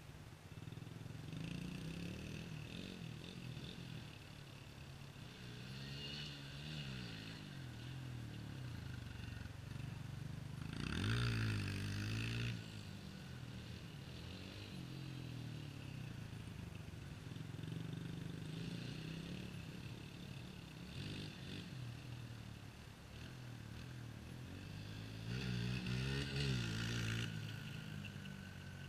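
Dirt bike engine heard from a distance, its pitch rising and falling over and over as it accelerates and shifts. It grows louder in two bursts of revving, about a third of the way in and again near the end.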